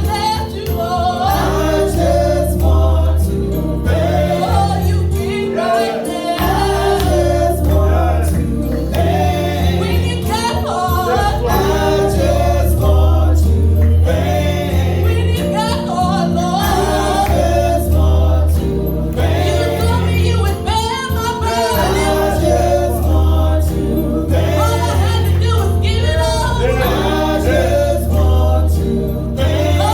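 Gospel music: a choir singing over band accompaniment with a strong, steady bass line.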